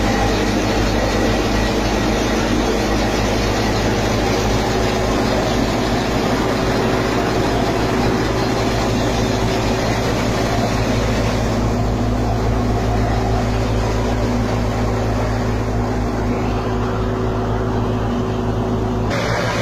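Tractor-driven wheat thresher running steadily while threshing, the tractor engine's even hum under the thresher's dense mechanical and blowing noise. The upper hiss thins about halfway through and comes back sharply near the end.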